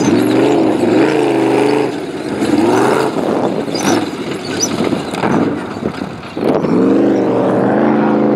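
Off-road race car engine revving hard, its pitch rising and falling with the throttle. It is loudest in the first two seconds and again near the end, with a shorter surge about three seconds in.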